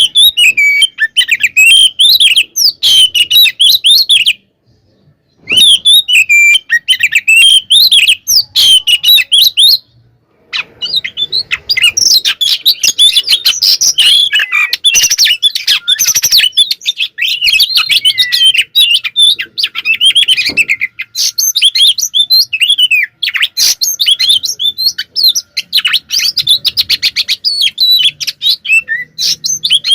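Oriental magpie-robin (kacer) singing a loud, fast, varied song of chirps, whistles and trills in an agitated fighting mood, the kind of song used to provoke other magpie-robins into answering. It breaks off for about a second twice, about four seconds in and about ten seconds in.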